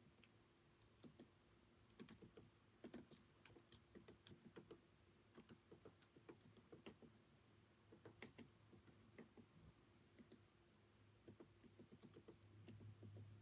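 Typing on a computer keyboard: quiet, irregular keystrokes in short runs with brief pauses, over a faint steady hum.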